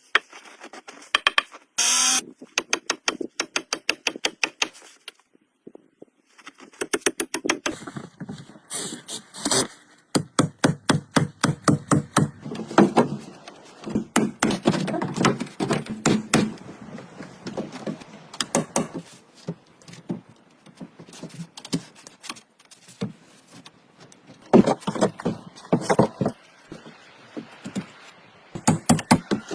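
Quick runs of sharp knocks and whacks of tools striking wood, many strikes a second, broken by short pauses.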